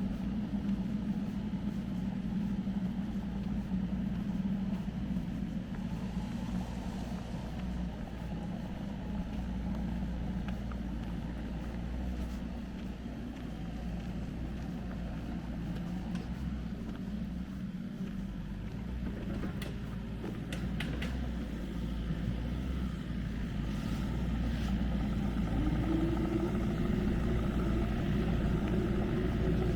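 A motor vehicle's engine running with a steady low rumble; near the end a higher engine tone comes in and holds, as if a vehicle draws closer or revs.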